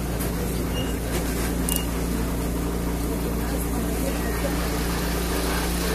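Steady low electrical hum of a Lisbon tram, heard from on board, with even street background noise and no sudden knocks.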